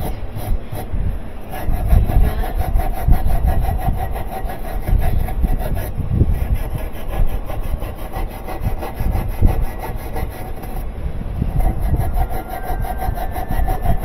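Hand tool scrubbing and scraping oily grime from the plastic washing-machine tub around the transmission hub, in fast back-and-forth strokes, several a second.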